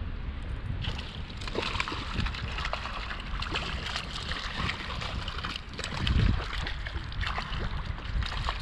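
A hooked trout thrashing and splashing at the water's surface beside a kayak, the splashing starting about a second in. Wind rumbles on the microphone underneath, with a stronger gust about six seconds in.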